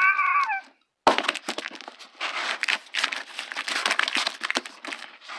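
A short, high, wavering squeal at the start, cut off within the first second. Then a steady run of cardboard scraping and rustling, full of small crackles and clicks, as a cardboard box is shifted and handled.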